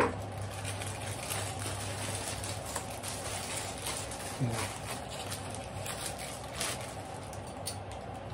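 Packaging being opened and handled: a few light clicks and rustles over a steady low hum.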